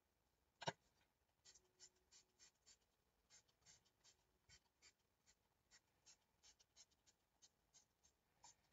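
Faint, quick scratchy strokes of a colouring tool working purple colour onto the project's surface, about two or three a second, with one sharper click a little under a second in.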